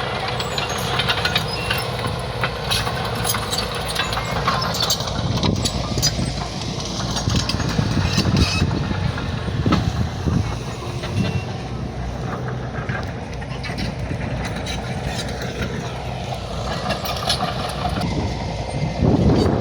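Bulldozer's diesel engine running under load, with frequent metallic clanks and clicks from its steel crawler tracks and the work. The engine pulls harder for a stretch in the middle and again near the end.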